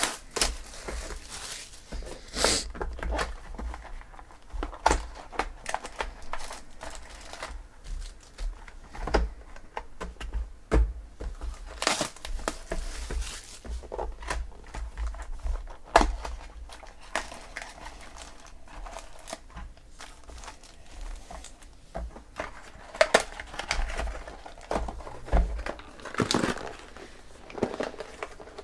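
Cellophane shrink-wrap crinkling and tearing as it is pulled off a trading-card box, then foil card packs being handled and stacked, with many sharp crinkles and taps.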